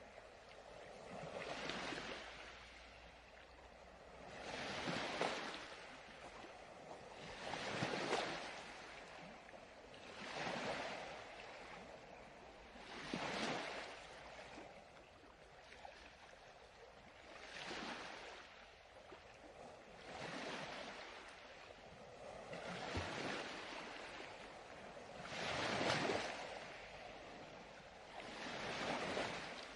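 Ocean surf: about ten waves wash in one after another, each a swell of noise that rises and falls away every two to three seconds.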